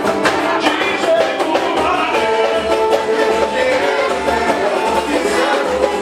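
A live band playing music with a steady beat.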